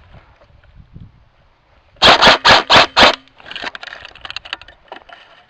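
An airsoft gun fires five quick shots about two seconds in, roughly four a second, very loud and close. Quieter rustling and crackling follow.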